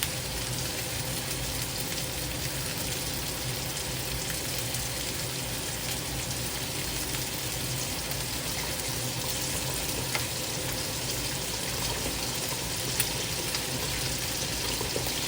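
Hot oil sizzling steadily in a pan as shark's fin dumplings and ground beef fry, with a light click about ten seconds in and another near the end.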